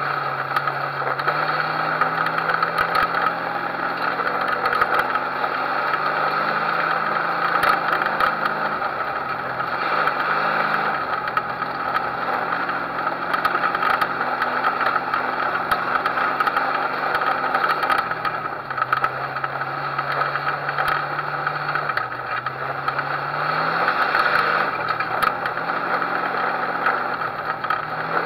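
Race car's engine heard on board, running hard with its note holding for stretches, then dropping and climbing again several times as the car slows and speeds up, with rattles from the car over it.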